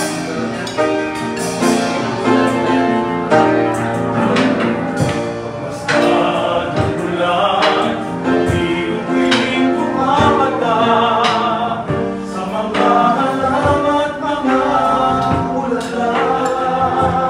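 Restaurant waiters and cooks singing a song over musical accompaniment, their voices held on long, wavering notes.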